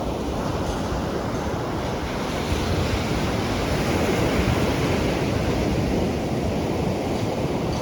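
Sea surf breaking on the shore: a continuous wash of waves that swells a few seconds in and then eases off.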